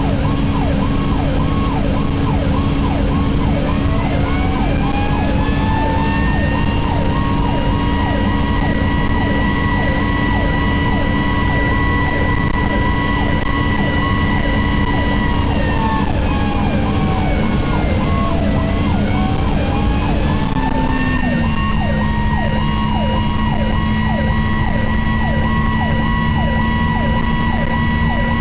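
Fire engine responding with sirens on: an electronic siren cycles rapidly up and down, about two to three sweeps a second. A second, slower siren winds up about four seconds in, holds a high tone, winds down and winds up again. Under the sirens is the truck's engine and road noise, with the engine note stepping down about twenty seconds in.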